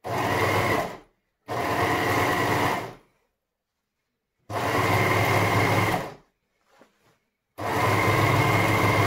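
Overlocker (serger) stitching in four short runs of one to two seconds each, stopping briefly between them. It is overcasting the freshly cut edge of a lace hem so that it won't fray.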